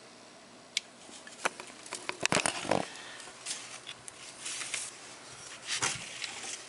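Handling noises: scattered clicks and taps with some rustling as the park and turn signal lamp assembly is picked up and moved, loudest in a cluster of knocks about two to three seconds in, with another knock near the end.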